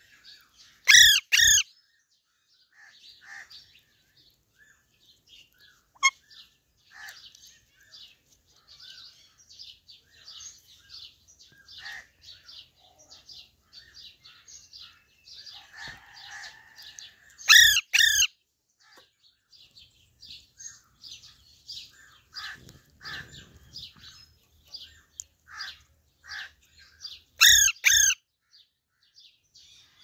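Parakeets squawking: three loud screeches, each made of two quick calls, about a second in, midway and near the end, over steady twittering of small birds.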